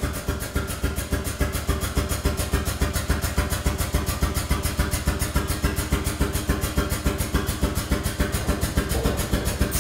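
The air-powered pump of a drum tipper's power drive running as the unit drives forward. It makes a steady rapid pulsing, about eight beats a second, over a low hum.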